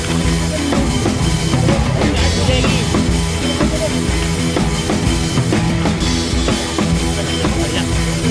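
Background rock music with drums.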